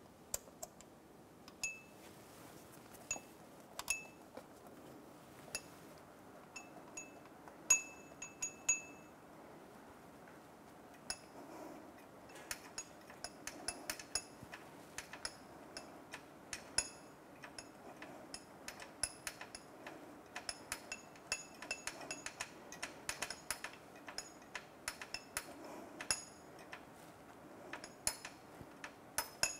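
Light metallic clicks and clinks of hand tools and fasteners against the AC compressor's mounting bracket as a mounting stud and bolt are fitted. The clicks are scattered at first, with a short quick run about eight seconds in, then come thicker from about eleven seconds on.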